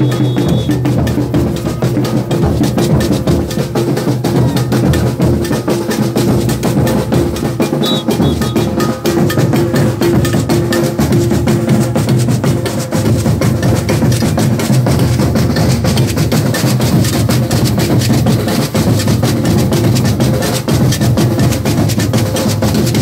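Maracatu drum group playing, bass drums and snare drums beating a dense, steady rhythm.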